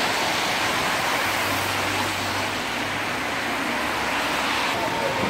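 Road traffic passing on a wet street, a steady rush of car tyres and engines on wet asphalt.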